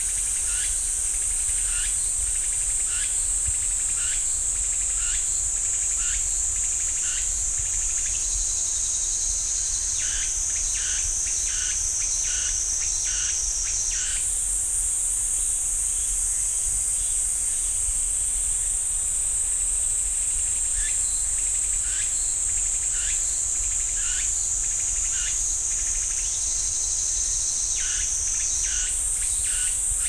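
Cicadas singing in a loud, steady high-pitched drone, which shifts in pitch about halfway through and again near the end. Beneath it, a lower pulsing call repeats about twice a second in stretches.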